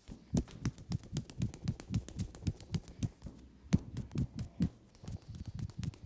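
Hands patting rhythmically on an oiled leg during massage: a steady run of soft thumps, about four a second, some with a slight slap.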